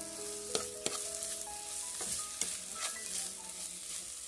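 Minced chicken with onions and spices sizzling as it fries in a non-stick kadai, with a spatula stirring and scraping it against the pan in a series of short scrapes.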